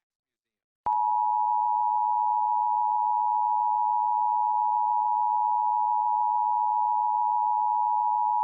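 Emergency Alert System attention signal, a steady two-tone alarm starting just under a second in and sounding without a break. It announces the spoken emergency message that follows, here the state's required monthly test.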